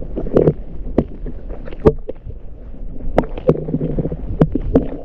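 Muffled water movement picked up underwater, with about eight sharp clicks and knocks scattered through it.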